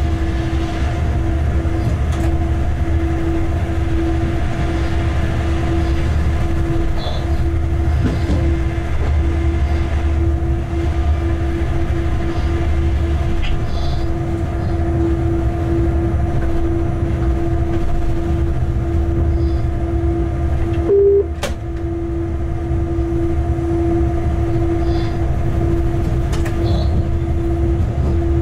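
Locomotive running light, heard from inside the cab: a steady low rumble with a constant hum. About three-quarters of the way through there is a short beep, then a single click.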